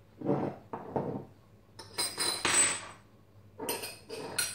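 Glass bottles, a jar and a drinking glass being picked up and set down on a kitchen countertop: a series of knocks and clinks, the brightest, ringing ones about two seconds in.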